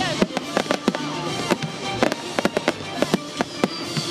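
A fireworks display: many sharp, irregular bangs from bursting shells over a continuous crackle, with music playing underneath.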